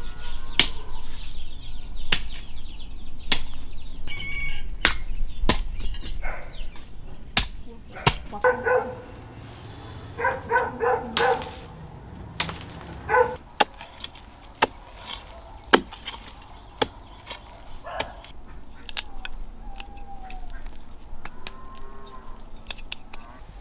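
Farmyard chickens clucking in short bursts, most busily in the middle, among scattered sharp knocks and clicks.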